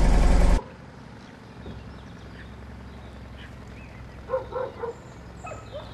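A steady engine hum with a voice over it cuts off abruptly less than a second in, leaving quiet outdoor ambience. About four seconds in comes a quick run of three short animal calls, and one more follows a moment later.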